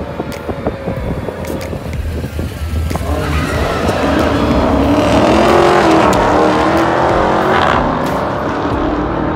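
A 2019 Camaro SS with its 10-speed automatic and a Dodge Challenger Hellcat, both V8s, idling at the starting line, then launching about three seconds in at full throttle. Their engines climb in pitch through the gears, are loudest a couple of seconds after the launch, then ease off as the cars pull away down the strip.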